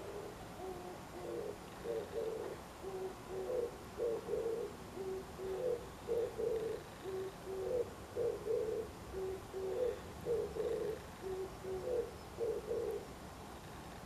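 Oriental turtle dove singing: a low, hooting coo phrase repeated about six times, roughly every two seconds, stopping shortly before the end.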